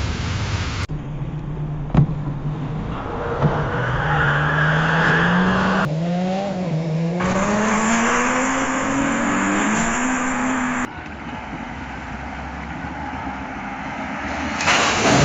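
Car engine accelerating hard through the gears, its pitch climbing with short drops at the shifts, then a quieter stretch of running and a louder burst of noise near the end.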